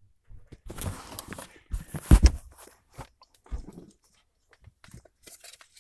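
Plastic interior trim piece being handled: rustling, a sharp knock about two seconds in, then a duller thud and a few faint taps.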